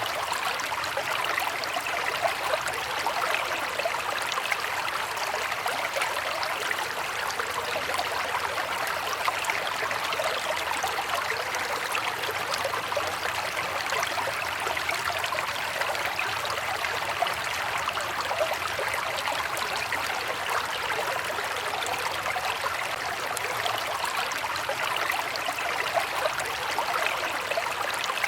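River water flowing steadily, a continuous rush with fine bubbling and splashing detail.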